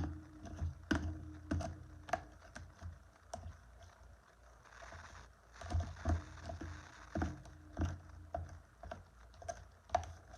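A big spoon stirring thickening slime in a container, knocking against its sides in irregular taps about once or twice a second.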